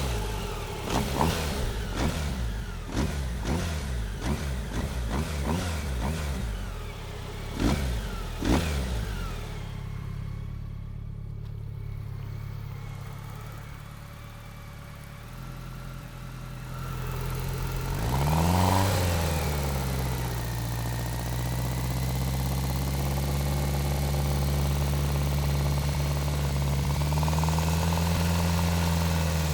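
BMW K1100 RS inline-four motorcycle engine running: a string of quick rises and falls in revs over the first several seconds, then quieter steady low running, one short rise in revs about eighteen seconds in, and a steady even drone after it.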